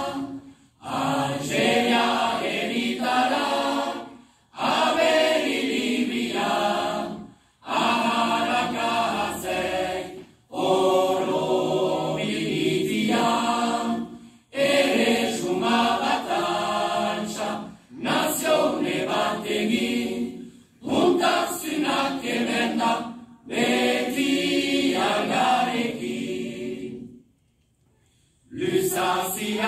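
Choir of a Basque pastorale singing unaccompanied, in sung phrases of a few seconds each with short breaks between them and a longer pause near the end.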